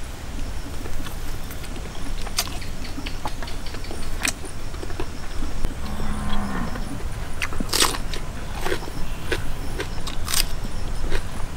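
Close-up eating sounds: a man chewing barbecued pork ribs, with many short wet clicks, smacks and crunches, over a steady low rumble. A short low falling hum comes about six seconds in.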